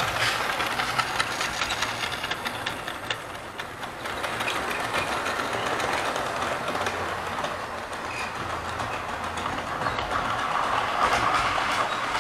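Model railway train running along the track: a steady motor whir with light clicking of wheels over the rail joints, getting louder near the end as it comes closer.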